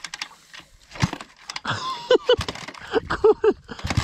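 A small dirt bike, stalled in a stream and soaked with water, being kick-started: clattering knocks from the kick-starter and bike, with a few short vocal sounds of effort. The engine catches and starts running just at the end.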